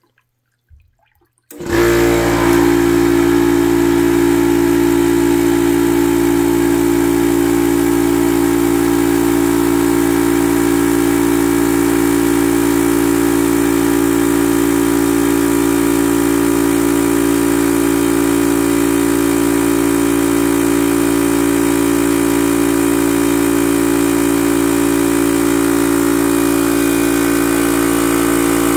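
Yong Heng HPA air compressor starting up suddenly about a second and a half in, then running steadily under load as it fills an aluminium 3000 PSI air tank.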